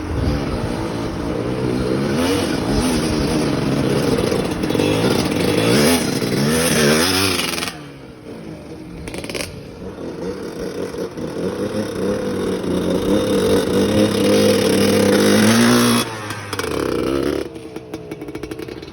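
Small dirt bike engines revving, the pitch rising and falling as the throttle is worked. The sound drops off sharply about eight seconds in, builds again and cuts off near the end.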